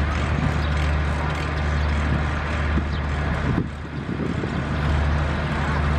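Alsthom diesel-electric locomotive 4207 running as it moves slowly away along the yard tracks: its diesel engine gives a steady low drone, which dips briefly a little after halfway.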